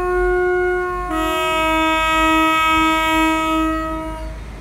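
Two-tone horn of a Class 172 diesel multiple unit arriving at a platform: a higher note, then about a second in a lower note that takes over and is held for about three seconds before cutting off.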